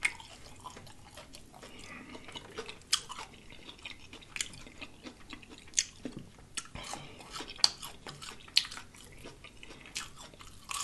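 Close-up chewing of fried catfish: wet mouth clicks and smacks scattered throughout, with a handful of sharper, louder clicks.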